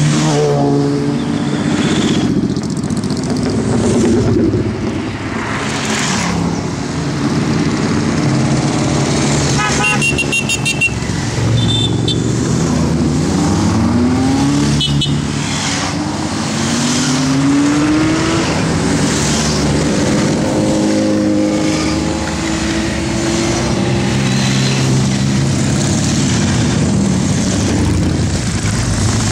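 A stream of motorcycles riding past one after another, their engines rising and falling in pitch as each bike goes by. A horn toots briefly about ten seconds in.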